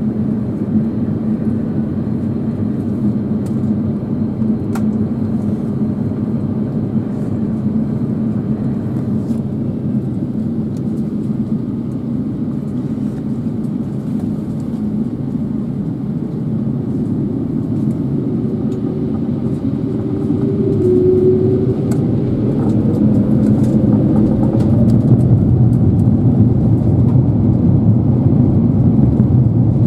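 Airliner cabin noise of an Airbus A350-900 on the ground: a steady rumble with a low hum. About two-thirds of the way in, a rising whine and a louder rumble follow as its Rolls-Royce Trent XWB engines spool up for the takeoff roll.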